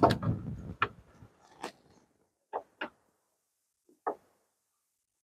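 Metal clinks and clicks of a wrench on a battery terminal clamp and cable: a burst of clattering in the first second, then five separate sharp clicks over the next few seconds.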